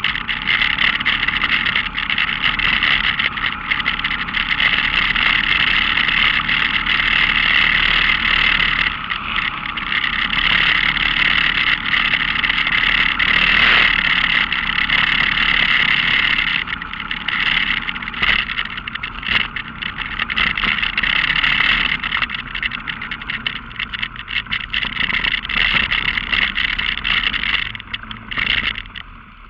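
ATV engine running under way on a muddy trail, with wind rush and splashing as the machine rides through water and mud, and knocks from bumps in the second half. The sound drops away sharply near the end.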